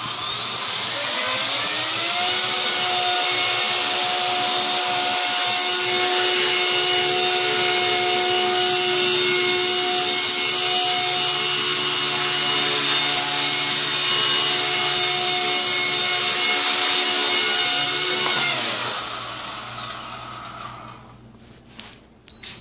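MicroGoblin micro RC helicopter's motor and rotor spooling up with a rising whine, then holding a steady high whine with rotor hiss while it hovers. At about 18 seconds in it winds down, the whine falling away. A few sharp clicks come near the end.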